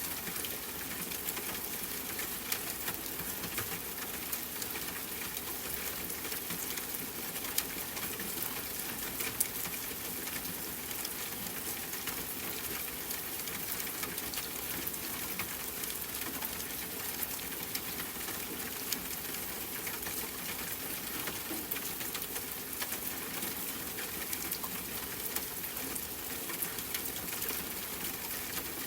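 Steady rain falling, an even patter with many scattered sharper drop ticks.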